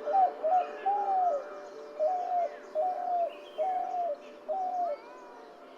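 Spotted dove cooing: a run of about seven coo notes, each rising a little and then falling. The later notes come evenly, a little under a second apart, and they stop about five seconds in. Faint chirps of other birds sound behind them.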